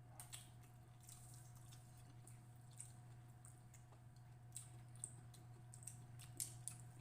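Near silence with faint scattered clicks and wet squishes of people chewing fish and rice, over a steady low hum.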